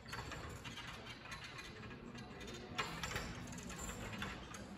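Scattered light clicks and knocks from the parallel bars as a gymnast swings and regrips on the rails, the sharpest about three seconds in, over faint gym room noise.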